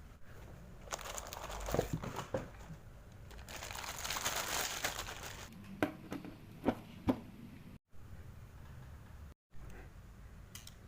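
Packaging crinkling and rustling as a toy is unboxed, in two spells of handling, followed by a few sharp clicks or taps; the sound cuts out completely twice for a moment near the end.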